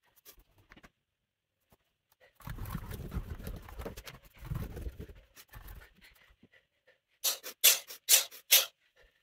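A person moving through a standing yoga sequence: a few seconds of rustling and thudding movement with a deep rumble, then about six short, sharp, loud bursts in quick succession near the end.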